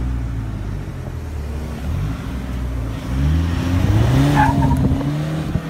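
Mitsubishi Triton pickup's engine heard from inside the cab as it pulls away, the revs climbing twice with a dip between them about three seconds in.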